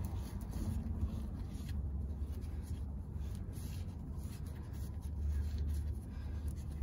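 Faint scratchy rubbing of a gloved hand turning an oil pan drain plug by hand, over a steady low rumble.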